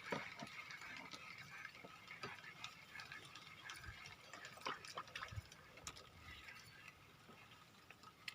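Faint steady outdoor background with thin high whirring tones and scattered light clicks and ticks.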